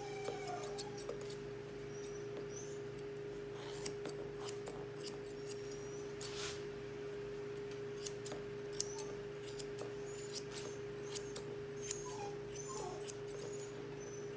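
Grooming shears snipping the hair around a puppy's front foot in quick, irregular cuts, over a steady background hum.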